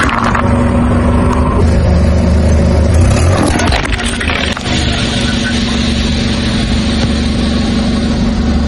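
A car's engine running steadily at a low pitch as its tyre rolls over aluminium drink cans, with short crunches as the cans burst under the wheel.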